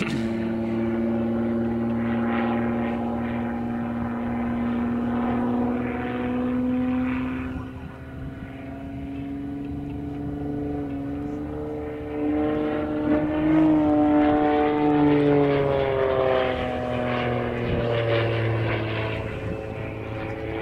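Single propeller-driven aerobatic monoplane's piston engine running through its manoeuvres, the engine note rising and falling in pitch as power and airspeed change. It gets louder about twelve seconds in, with a falling pitch a few seconds later.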